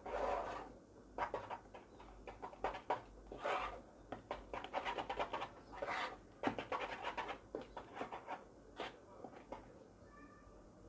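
Wooden spoon stirring and scraping thick vegetable purée in a saucepan, in irregular strokes that grow fainter near the end.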